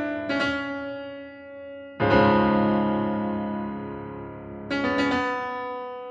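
Background piano music: slow chords struck and left to ring out and fade. A loud chord comes about two seconds in, and a few more follow near the end.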